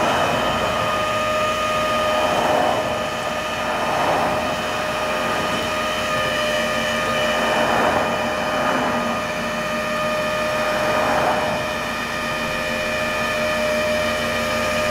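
Flatbed tow truck's hydraulic winch running with a steady whine as it draws a car up the tilted bed. Passing highway traffic swells by several times.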